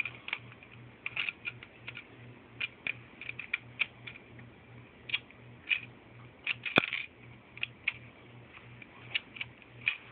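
Plastic Lego bricks clicking and rattling under small fingers as a Lego soda dispenser is worked to free a stuck piece: irregular light clicks, with one sharper snap about two-thirds of the way through.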